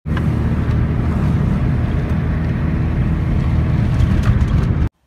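Steady road and engine noise of a car driving, heard from inside the cabin; it cuts off suddenly near the end.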